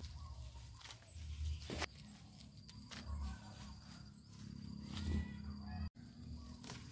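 Quiet garden ambience with faint, scattered bird chirps over a low rumble on the microphone; the sound cuts out briefly near the end.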